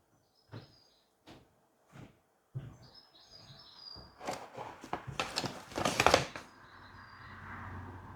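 Small birds chirping in short high calls, over three sharp clicks in the first two seconds and a loud scuffling, knocking stretch about four to six seconds in.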